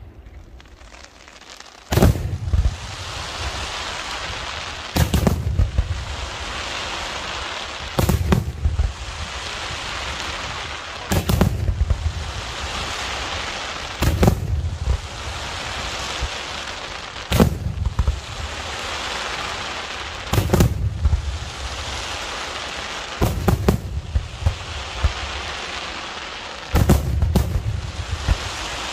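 Daytime aerial fireworks shells bursting in sharp, loud bangs roughly every three seconds, starting about two seconds in, each followed by a low rumbling echo, with a steady hiss between the bursts.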